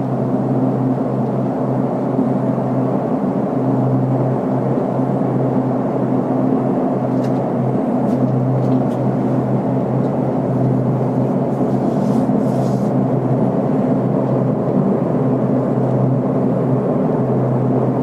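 Steady low droning hum from the sky, like a plane that is passing but never passes, holding the same pitch and loudness throughout.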